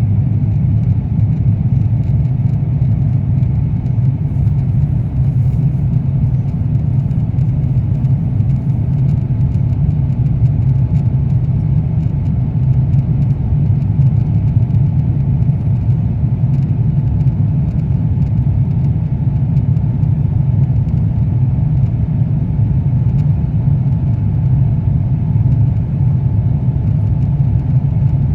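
Steady low rumble inside the cabin of an Airbus A350-900 in flight: engine and airflow noise, unchanging throughout.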